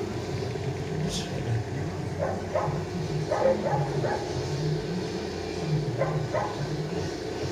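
Handheld petrol string trimmer engine running steadily while its cutting head is swept over paving stones. A few short, higher-pitched sounds come on top of it about two to four seconds in and again around six seconds.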